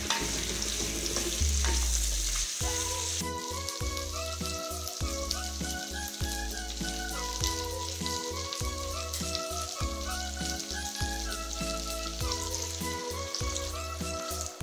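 Drumstick pieces and shallots sizzling as they fry in oil, stirred with a wooden spatula. Background music with a steady beat and a stepping melody comes in about three seconds in, over the fainter sizzle.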